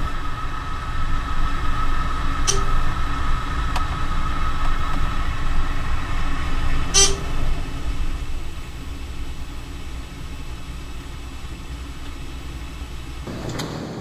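Dover elevator car running downward with a steady hum and rumble, and two short sharp clicks a few seconds apart. The sound eases off as the car reaches the ground floor, and near the end a louder rush starts as the doors begin to open.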